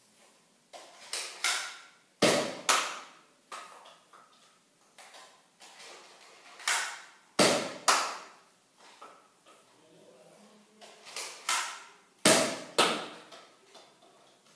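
Nerf Zombie Strike Sidestrike dart blaster being primed and fired three times, about five seconds apart. Each round is a quick cluster of sharp plastic clacks and pops.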